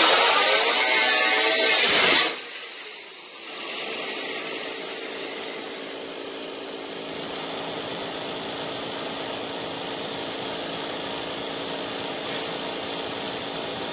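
A handheld grinder's cut-off wheel cutting through the sheet metal of a car hood, high-pitched with its pitch shifting under load, stopping abruptly about two seconds in. A steady lower hum carries on after it.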